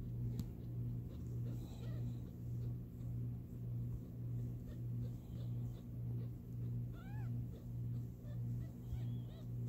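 Newborn kittens mewing: thin, high, rising-then-falling mews, a faint one or two early on and two clear ones in the second half. Under them runs a steady low hum that pulses about twice a second.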